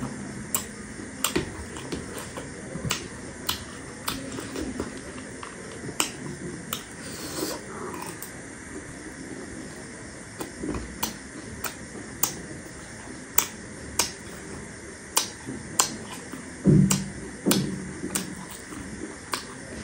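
Close-miked chewing of chatpate, a crunchy spicy puffed-rice snack: sharp, irregular crunches, one or two a second, with a couple of duller mouth sounds near the end.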